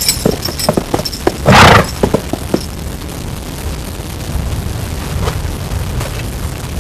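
A horse snorts once, loudly, about a second and a half in, among light clicks and clinks of saddle tack; after that only a steady low rumble remains.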